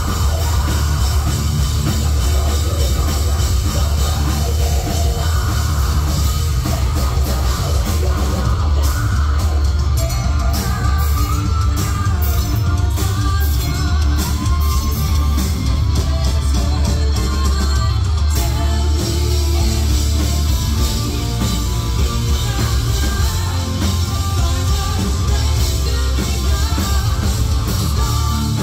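Live heavy metal band playing loud: a woman singing lead over electric guitar, bass guitar and drum kit.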